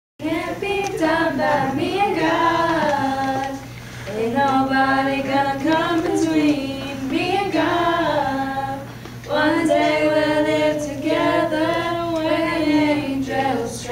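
A small junior choir of young voices singing together in sustained phrases, with two short breaks about four and nine seconds in.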